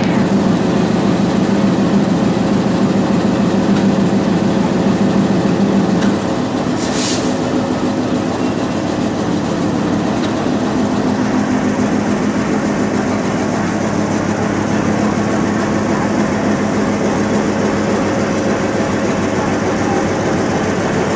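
Class M10 diesel locomotive's engine running steadily as the locomotive moves slowly up to a coach to couple, its note dropping slightly about six seconds in. A short hiss comes about seven seconds in.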